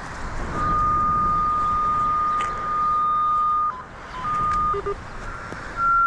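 Cable locator receiver sounding its steady signal tone, a single high beep held about three seconds, cutting out, returning briefly, then coming back slightly higher in pitch near the end as it tracks the locate signal on a buried telecom cable.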